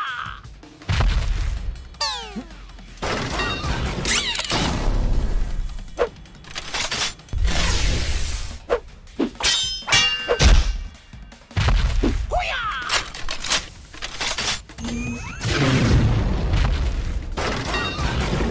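Added cartoon fight sound effects for toy robots battling: a rapid series of laser zaps with falling and rising pitch sweeps, hits, booms and shattering crashes, over background music.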